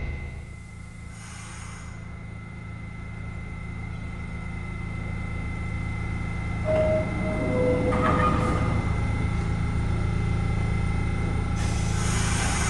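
R68 subway train standing at the platform, humming steadily with a thin high whine. About seven seconds in, a two-note descending door chime sounds. Near the end, a hiss of air starts.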